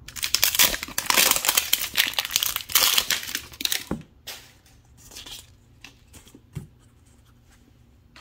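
Paper wrapping being torn and crinkled off an LOL Surprise doll ball for about four seconds, then a few light clicks as the ball is handled.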